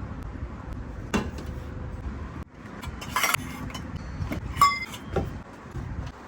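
Tableware being handled: a few knocks and clinks, one of them ringing briefly about four and a half seconds in, over a steady low rumble.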